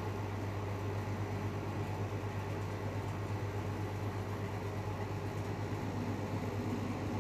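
Steady low rumble of an Airbus A320neo jet airliner passing high overhead.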